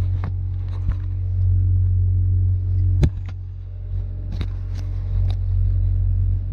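Komatsu PW160 wheeled excavator's diesel engine running with a steady low drone. Several sharp clicks and knocks sound over it, the loudest about three seconds in.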